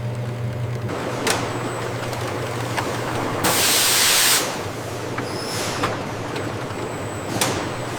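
Production-line machinery running with a steady hum, broken midway by a loud hiss of about a second. There are sharp clicks about a second in and again near the end.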